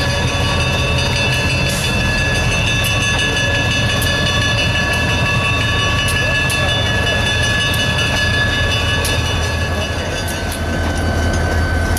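Diesel locomotives running, a steady low engine rumble with a steady high whine on top and a few faint ticks.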